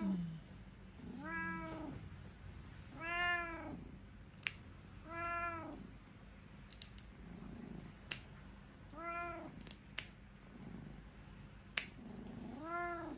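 A domestic cat meowing repeatedly, about five drawn-out meows that rise and fall in pitch, as it is held still for a claw trim. Between the meows a pet nail clipper snips its claws with sharp, short clicks, several of them, the loudest near the end.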